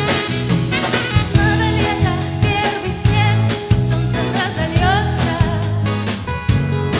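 Live band playing a song: drum kit hits keeping a steady beat under electric guitar and bass, with a melody line on top that wavers in pitch.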